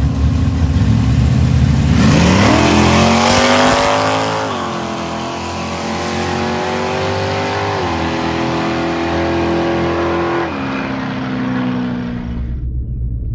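2012 Ford Boss 302's 5.0-litre V8 revving hard about two seconds in, with a loud rushing noise. The engine note then holds, stepping down in pitch twice, and the rushing dies away near the end.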